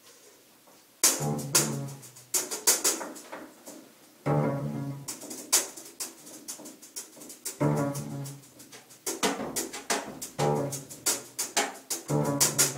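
Free-improvised jazz led by a double bass: short, broken phrases of low bowed notes, mixed with sharp percussive hits, after about a second of near quiet at the start.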